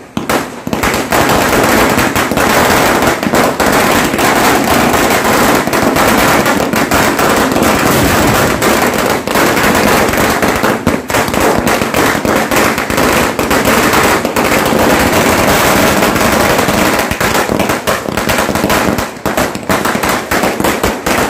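A long string of firecrackers going off in a rapid, unbroken crackle of bangs like machine-gun fire, thinning out to more scattered bangs near the end.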